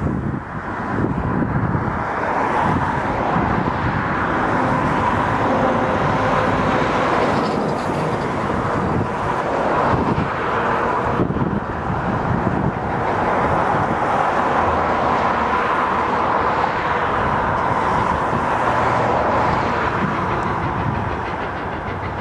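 Essex Terminal Railway #9, an 0-6-0 steam locomotive, working past with its train of cabooses and passenger coaches: a loud, steady rush of running noise.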